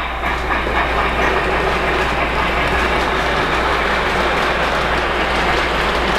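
Lionel O-gauge model train, a LionChief Plus 2.0 Berkshire steam locomotive pulling its cars, running along the track with a steady clatter of wheels on the rails.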